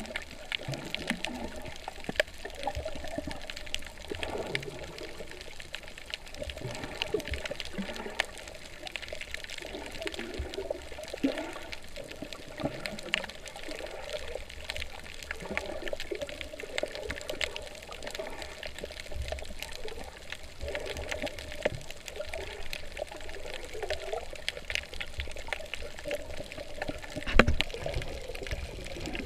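Seawater sloshing and gurgling against a snorkeler's camera at the surface, with many small clicks and one louder knock near the end.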